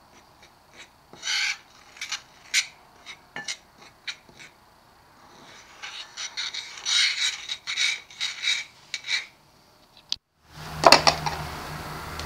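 A fork scraping and rubbing through a dry breadcrumb-and-flour coating mix in a bowl: a run of short, uneven strokes, busiest in the middle. After a short gap near the end comes a single loud knock, and a low steady hum sets in behind it.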